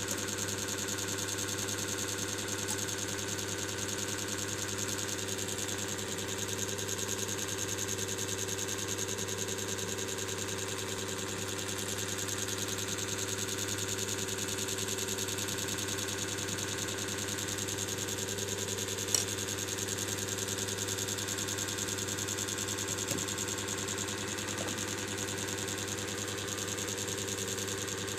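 Steady machine hum with a constant high hiss over it, unchanging throughout; one sharp click about nineteen seconds in.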